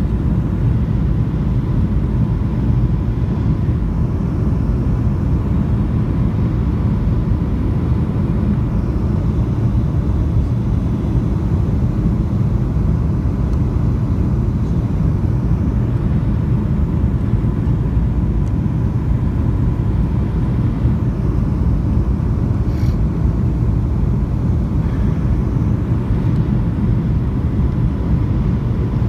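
Steady cabin noise of a jet airliner on its landing approach with the flaps down: a loud, even, low rumble of engines and rushing air, with a faint thin steady tone above it.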